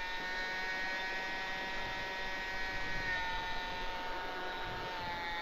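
Hobby-King Cessna TTX radio-controlled model plane in flight: the steady whine of its electric motor and propeller, dropping slightly in pitch about three seconds in and again near the end.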